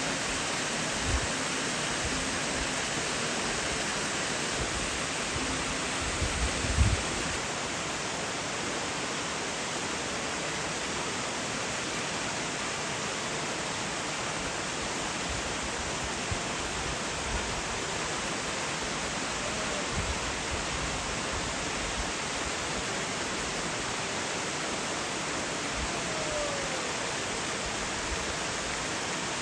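Waterfall rushing: a steady, even wash of falling water. A few short low thumps come about a second in and again around six to seven seconds in.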